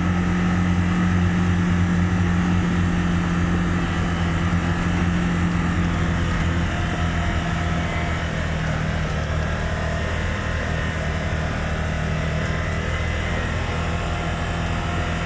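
Side-by-side UTV engine running at a steady pitch while driving off-road, with tyre and wind noise mixed in.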